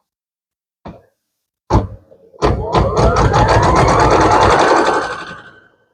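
Computerised embroidery machine starting to stitch: a click and a thump, then rapid needle strokes with a whine that rises in pitch as the machine speeds up, stopping shortly before the end.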